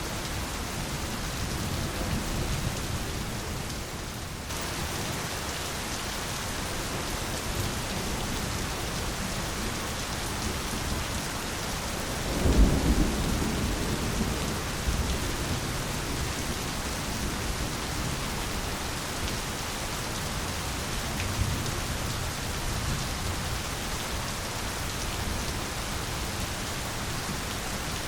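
Steady heavy rain falling on foliage, with a rumble of thunder about halfway through and fainter rumbles after it.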